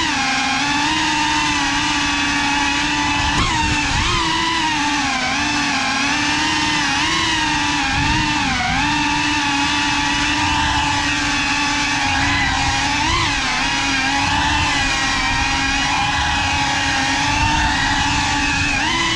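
Small FPV drone's motors and propellers whining steadily in flight. The pitch wavers and dips briefly several times as the throttle changes.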